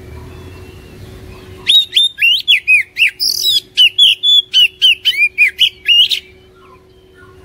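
Oriental magpie-robin singing a fast, loud run of clear whistled notes, several a second, each sweeping up or down in pitch. The song starts about two seconds in and stops about a second before the end.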